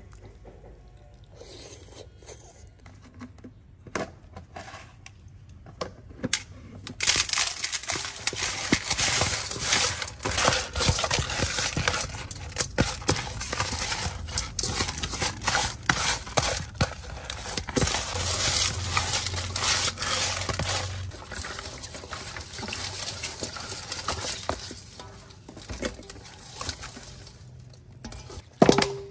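Hands scrubbing whole snakehead fish with coarse salt in a metal basin, to strip the slime from their skin: a gritty rubbing full of small clicks that starts about seven seconds in and fades out a few seconds before the end. Quiet small clicks come before it, and a sharp knock on the basin comes near the end.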